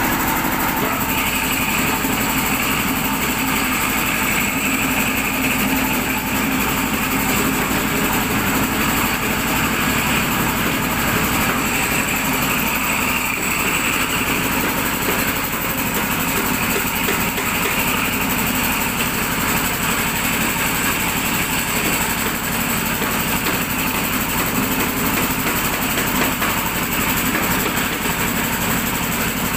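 Electric walk-behind concrete floor grinder running steadily, its grinding head working over a concrete floor.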